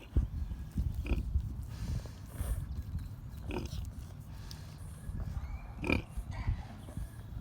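Piglets grunting steadily, with three short, sharp squeals about a second, three and a half seconds and six seconds in.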